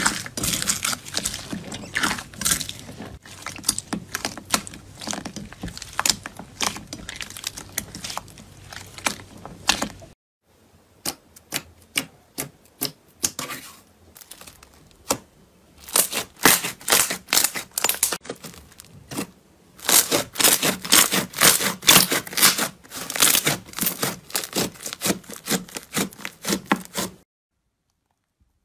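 Slime being kneaded and squeezed by hand: dense crackling and clicking as blue slime is worked into a bowl of white beads, then, after a sudden drop about ten seconds in, sparse clicks followed by bursts of sticky popping and clicking that cut off shortly before the end.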